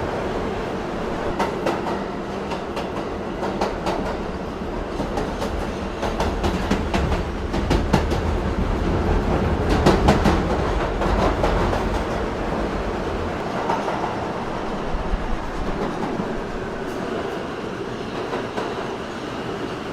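Subway train running along the track, with a steady rumble and the clickety-clack of wheels over rail joints. The clicks come thickest in the middle, and the low rumble eases off after about 13 seconds.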